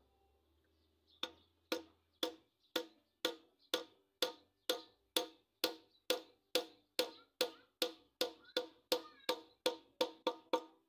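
A hammer knocks on the end of a wooden bolo handle, seating the handle and its metal collar against the bench. About two dozen blows come at roughly two a second, quickening slightly near the end.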